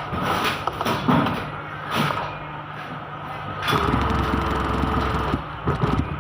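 Mechanical knocking and clatter over a steady low hum, then a motor runs for about a second and a half just past the middle before stopping.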